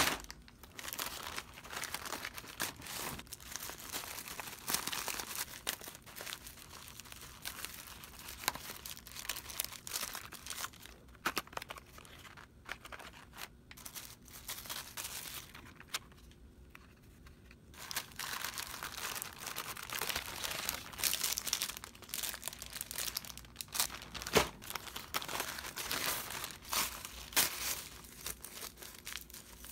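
Plastic mailer bags crinkling and rustling as a parcel is handled and opened, with scissors cutting through the plastic. It goes quieter for a few seconds in the middle, then the crinkling picks up again.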